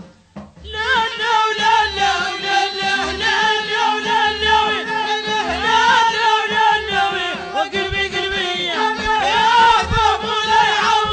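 A Moroccan song's music comes in after a brief dip about a second in. It carries an ornamented, wavering melody line over held lower notes and a regular bass beat.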